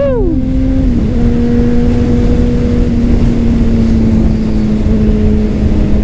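The inline-four engine of a 2009 Honda CBR600RR, fitted with a LeoVince exhaust, running at a steady cruising speed under wind rush, heard onboard. Its pitch holds nearly level, with a brief break about a second in.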